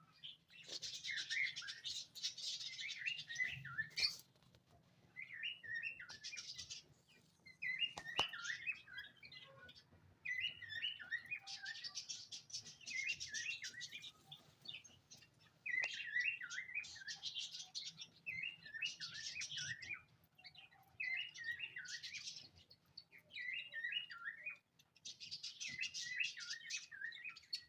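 Small cage birds chirping and chattering in repeated bursts. Each burst is a scratchy, buzzy run followed by quick warbling notes, with a couple of sharp clicks in between.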